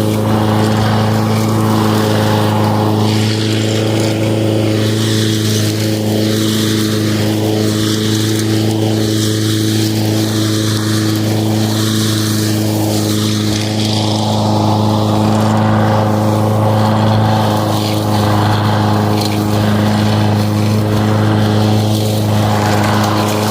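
Lawn mower running at a steady speed, a loud constant hum with a shifting rushing sound over it.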